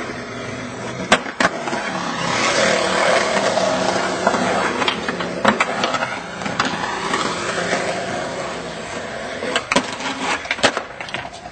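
Skateboard wheels rolling over concrete in a steady rumble, broken by sharp clacks of the board hitting the concrete: two about a second in, one near the middle and several near the end.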